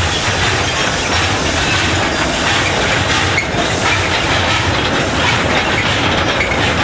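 A train of loaded narrow-gauge side-tipping wagons rolling past on sugar-mill track, a steady running noise of wheels on rail.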